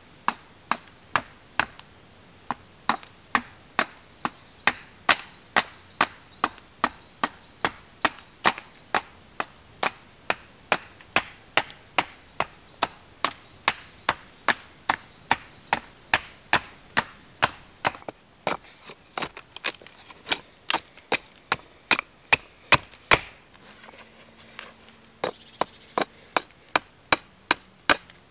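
A hatchet repeatedly striking the end of an upright wooden stave to split it lengthwise for an arrow shaft. The sharp wooden knocks come about two a second, stop briefly near the end, then start again.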